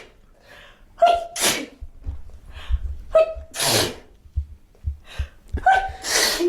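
A person sneezing three times in a row, about two and a half seconds apart. Each sneeze is a short pitched intake and 'ah' followed by a sharp, hissy 'choo', and the last one is the loudest.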